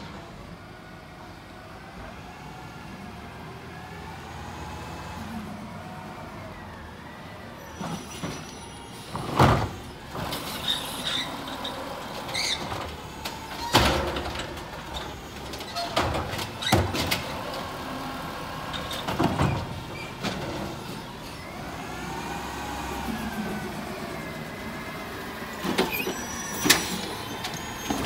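Autocar automated side-loader garbage truck pulling up and emptying residential carts with its arm. The engine runs with a rising and falling pitch, and from about a third of the way in there is a series of loud bangs and clunks as carts are lifted, shaken out over the hopper and set back down.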